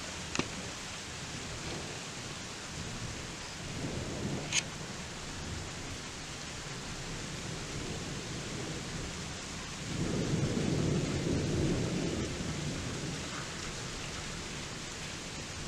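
Steady rain with thunder rumbling low: a short rumble about four seconds in and a stronger, longer one about ten seconds in that fades after a couple of seconds. Two sharp clicks cut through the rain, one near the start and one about four and a half seconds in.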